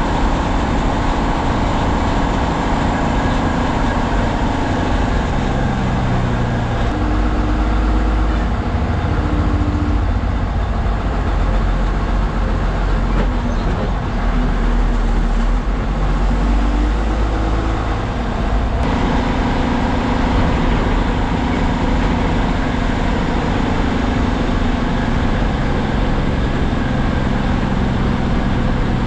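MSRTC bus diesel engine and road noise, heard inside the cabin while the bus is driving. The engine note drops about five to seven seconds in, stays lower through the middle, then rises again after about eighteen seconds.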